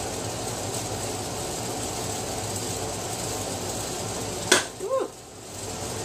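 Hot vinegar brine poured from a stainless steel saucepan through a plastic funnel into a jar of sliced cucumbers, a steady rushing noise. About four and a half seconds in, a sharp knock as the saucepan is set down, then a brief pitched sound.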